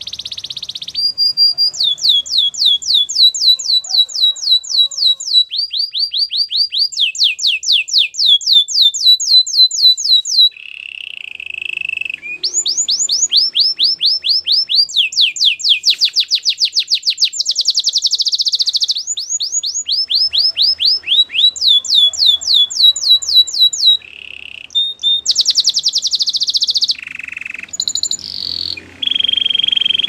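A domestic canary singing a long, continuous song: fast trills of repeated sweeping notes, each trill giving way to a new one every one to three seconds, with a lower, buzzier trill about a third of the way through.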